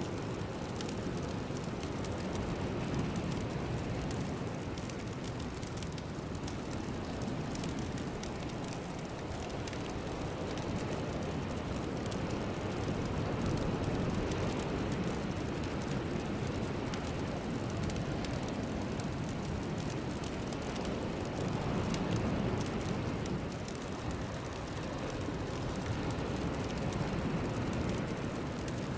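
A steady rushing noise with no pitch or beat, swelling and easing slowly every several seconds.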